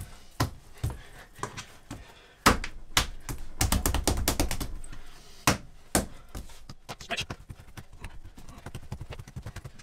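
Bread dough being kneaded by hand on a kitchen worktop: irregular thumps and slaps of dough and hands against the counter, with a quicker run of soft taps near the end.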